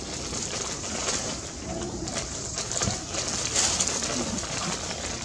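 Dove cooing softly a few times, low and brief, over a steady outdoor hiss.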